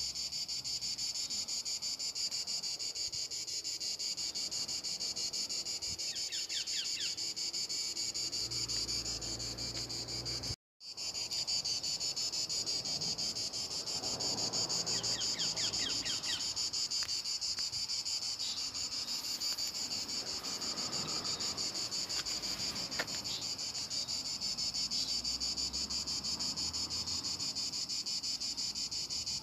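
Steady, high-pitched chorus of insects, like a field of crickets, that cuts out for an instant about ten seconds in. Faint soft rustling lies underneath.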